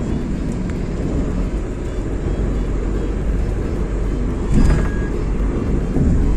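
Car driving along the road: a steady rumble of engine and tyres, with a short louder bump about four and a half seconds in.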